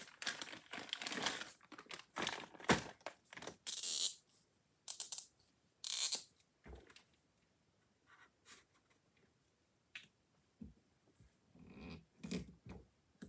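A plastic zip-top bag of dry-erase markers crinkling and rustling as a hand rummages in it. After about four seconds come scattered small clicks and light scratches from a marker being uncapped and used on a dry-erase card, with quiet gaps between them.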